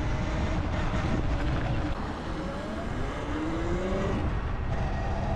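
Wind rushing over the microphone while riding, a dense low rumble throughout. Under it, a vehicle's motor whine rises in pitch about halfway through as it speeds up, then holds a steady tone near the end.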